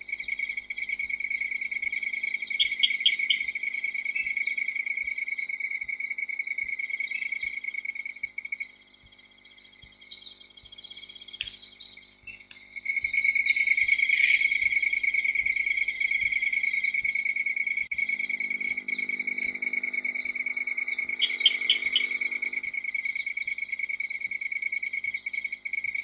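A steady, high-pitched trill from night insects. It breaks off for about four seconds near the middle, and a few quick chirps sound over it twice.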